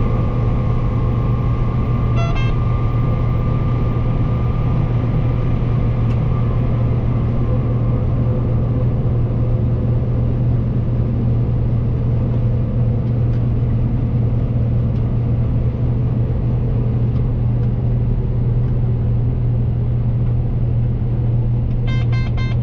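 Combine harvester running steadily while harvesting soybeans, a deep engine and threshing drone heard from inside the cab. Short bursts of rapid electronic beeping come about two seconds in and again near the end.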